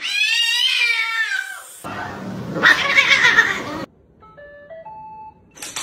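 Cat giving a long, drawn-out yowl that bends in pitch, followed by about two seconds of louder, rough, noisy sound. A few faint short beeping tones come near the end.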